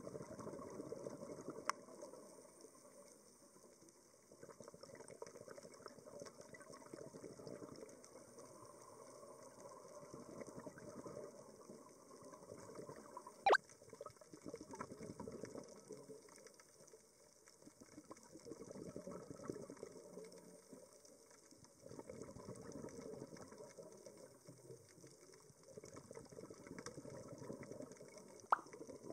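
Underwater sound heard through a camera's waterproof housing: a low rush of scuba exhaust bubbles that swells and fades every few seconds as the diver breathes out. A few sharp clicks stand out, the loudest about halfway.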